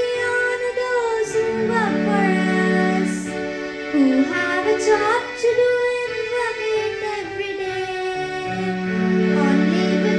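A young female voice sings a slow melodic song, its pitch gliding between held notes, over instrumental accompaniment with long sustained tones.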